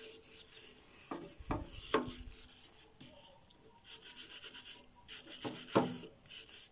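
A hand file scraped back and forth over a wire metal flower stand, sanding it down. There is a quick run of strokes about four seconds in, and several knocks that set the metal ringing briefly.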